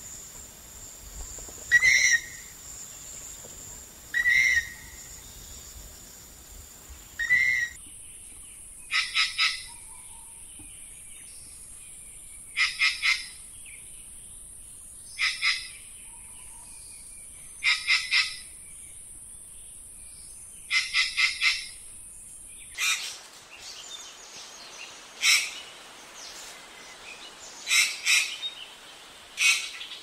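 Ratchet-tailed treepie calling. First come single calls about every two seconds. From about eight seconds in, it gives short bursts of two to five quick notes every few seconds. Near the end the calls come irregularly.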